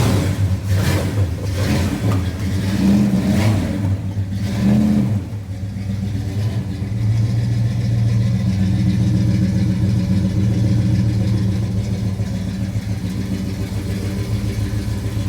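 A car engine revved several times in the first five seconds, then settling into a steady, smooth idle.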